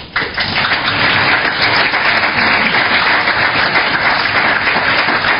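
Audience applauding: a few scattered claps quickly swell into full, steady applause within the first half second.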